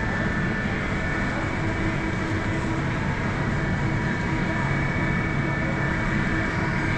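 Steady background hum of a supermarket, the drone of refrigerated display cases and ventilation, with a few unchanging tones in it.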